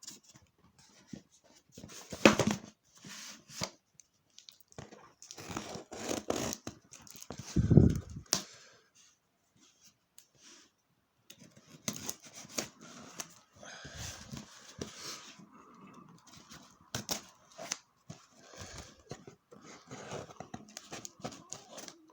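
Packaging being opened by hand: cardboard and wrapping torn, rustled and handled in irregular bursts, with a couple of louder knocks, the heaviest a dull thump about eight seconds in.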